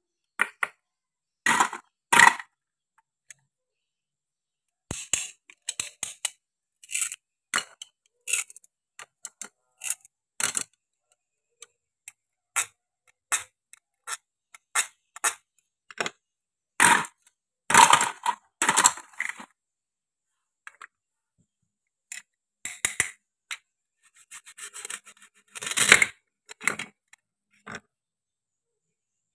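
Toy plastic fruits and vegetables being cut apart with a wooden toy knife on a wooden board: irregular clicks, taps and knocks of plastic and wood, with short rasping rips as the hook-and-loop fastened halves pull apart, and brief silent gaps between.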